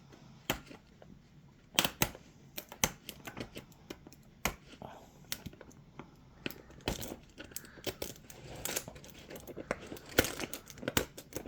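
Plastic packaging of a toy surprise egg crinkling and tearing as it is opened by hand, with many irregular clicks and crackles.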